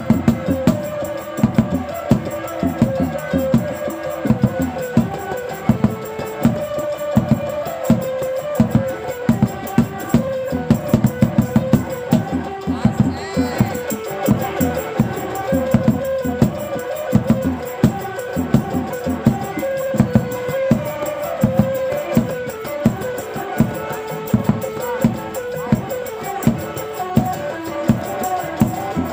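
Rudat accompaniment: hand drums beating a steady, even rhythm of a few strokes a second under a held melody line.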